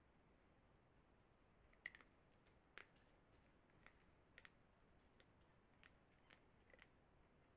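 Collared peccary walking through dry leaf litter: faint, irregular clicks and snaps of leaves and twigs underfoot, the sharpest about two seconds in, over near silence.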